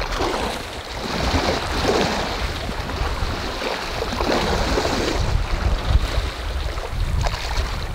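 Open-ocean waves sloshing and splashing right at the microphone held at the waterline, with a low wind rumble underneath.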